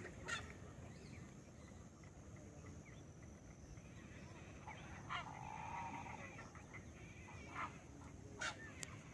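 Birds calling: a few short sharp calls, and one longer call of about a second around the middle, over a steady faint high tone.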